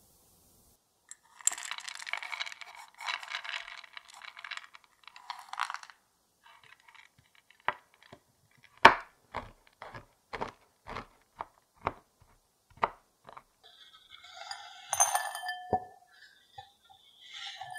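Knife chopping a block of chocolate on a wooden cutting board, sharp chops about twice a second, one much louder than the rest. Near the end, chopped chocolate is scraped off the board into a glass bowl with a clinking rattle. Before the chopping there are a few seconds of dry crackling.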